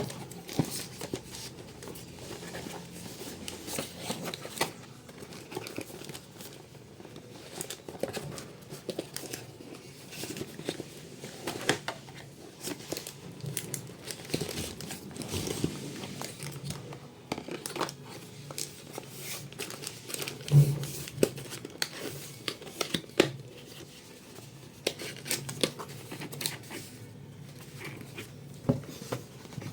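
Hands handling packaging and small items: irregular crinkling and tearing of plastic and cardboard with scattered clicks and knocks, one louder knock a little past two-thirds of the way through.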